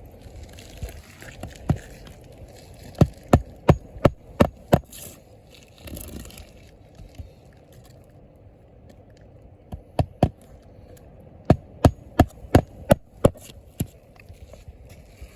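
Hammer driving roofing nails into asphalt shingles: a run of about six quick strikes, a pause, two more, then another run of about six.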